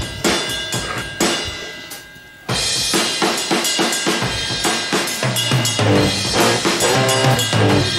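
Rock music on the soundtrack: a drum kit beating out a steady rhythm, the full band coming in about two and a half seconds in and a bass line joining about five seconds in.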